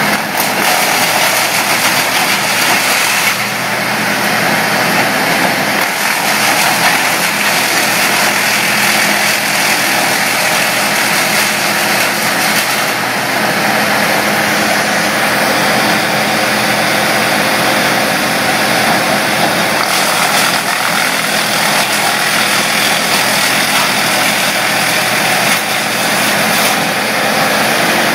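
Bandit tow-behind brush chipper running loud and steady as branches are fed in and chewed into wood chips.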